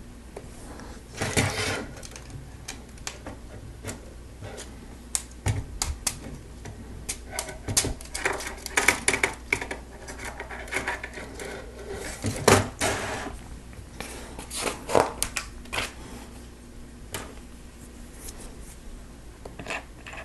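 Plastic Lego Technic pieces clicking and rattling as they are handled, sorted and pressed together, with several louder clacks.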